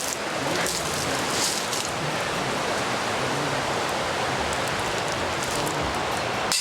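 Strong wind, about 35 mph, rushing steadily with an even noise.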